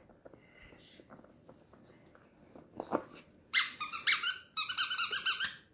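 Faint taps and rustles, then from about three and a half seconds in a spiky rubber squeaky ball is squeezed over and over, giving loud runs of quick, high squeaks with short breaks between them.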